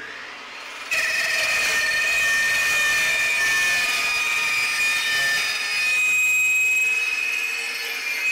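Fein Slugger 14-inch carbide-tipped cold saw cutting into 3-inch 6061 aluminium tube as a shallow trial cut. From about a second in there is a steady high-pitched ring over a hiss, easing a little near the end.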